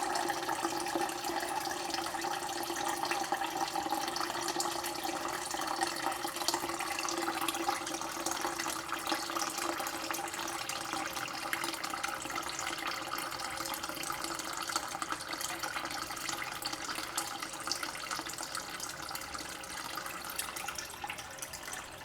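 Water running steadily into a jug as it fills, a continuous splashing stream. Its hollow resonant tone fades and the sound shifts higher partway through as the jug fills up.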